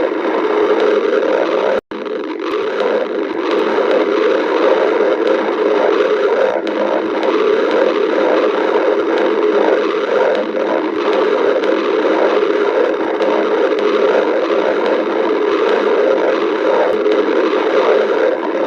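Human stomach growling, continuous, with an irregular flickering texture. It drops out for an instant about two seconds in.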